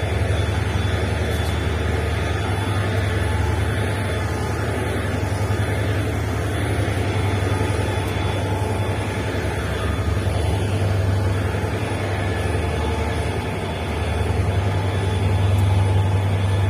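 Locomotive-hauled passenger train rolling slowly through a station, heard from aboard: a steady low drone over a rumbling running noise, easing a little and then swelling again near the end.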